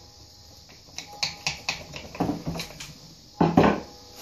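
Clinks and knocks of a Can-Am ATV V-twin engine's transmission housing being rocked and worked loose from the engine case by hand. A run of sharp ticks and a short clatter lead to a couple of heavy thumps about three and a half seconds in, the loudest sound.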